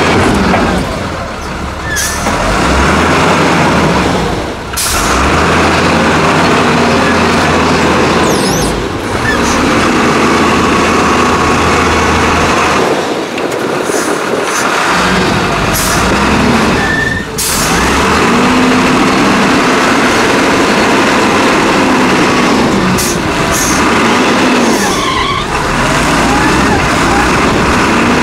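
XCMG LW300FN wheel loader's diesel engine working hard, its pitch rising and falling again and again as the machine pushes into a sand pile and raises its loaded bucket. Several short hisses come and go over it.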